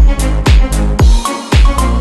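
Background electronic dance music with a steady kick drum about twice a second; the bass and kick drop out briefly just past halfway, then come back in.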